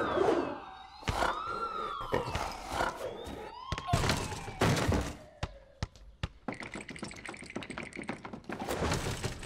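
Cartoon sound effects: a whistle-like tone glides up and then slowly down, broken by several thunks as a body tumbles onto a wooden bench. A fast rattling clatter follows, in the second half.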